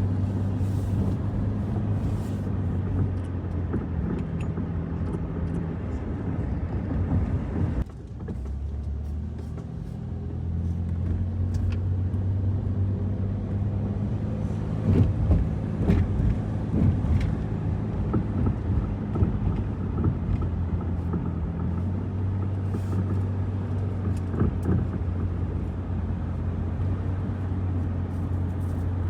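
Car driving, with a steady low engine and road hum heard from inside the cabin; the hum briefly drops about eight seconds in, and a few faint clicks sound now and then.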